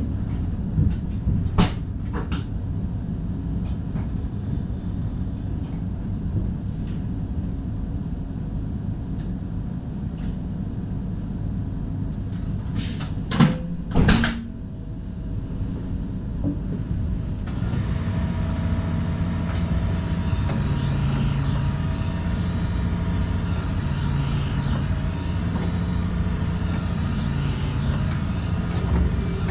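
Inside the driver's cab of an NS DDZ double-deck intercity train: a steady low rumble with scattered clicks and two loud knocks about halfway. A little past halfway the noise grows louder, with a hiss and a low hum that shifts in pitch in steps.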